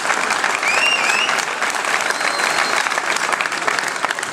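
Crowd applauding steadily, with a couple of short high gliding whistles in the first half.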